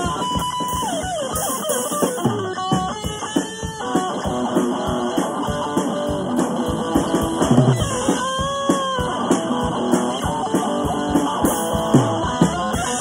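Amplified electric guitar and a drum kit playing a rock jam: lead guitar lines with bent notes over steady drumming and cymbals.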